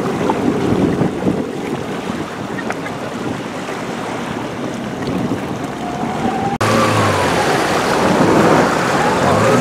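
Jet ski engines over wind buffeting the microphone and water noise. A sudden change comes about two-thirds through, after which engine whines rise and fall in pitch as the skis rev.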